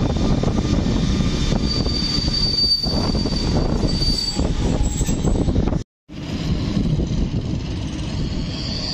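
Newag Griffin EU160 electric locomotive and its coaches rolling slowly past at close range: a dense steady rumble, with a thin high whine for a couple of seconds. The sound breaks off abruptly about six seconds in, then a fainter rumble continues.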